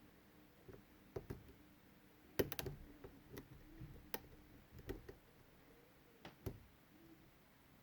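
Faint, irregular clicks and taps of a lock pick and tension wrench working the pins inside a Medeco Biaxial 51S rim cylinder while it is being picked, with the loudest cluster of clicks about two and a half seconds in.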